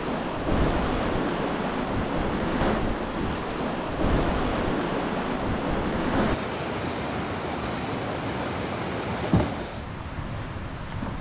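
Whitewater rapids rushing, a steady noise of churning river water. A single sharp thump comes a little past nine seconds, after which the water is quieter.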